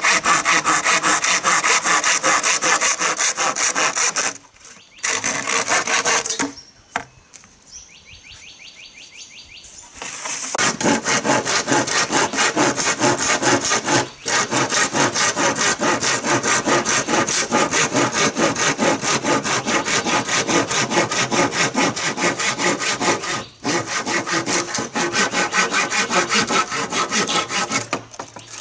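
Hand saw cutting through a green bamboo pole in rapid, even back-and-forth strokes, stopping briefly about four seconds in and for a few seconds near the middle before going on steadily.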